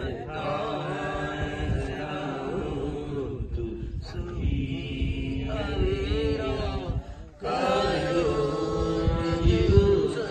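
Buddhist chanting: voices intoning long, held, melodic tones, with a short break about seven seconds in.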